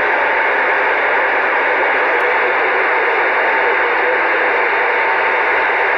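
CB radio receiver hissing with the squelch open: loud, steady static with faint steady whine tones under it.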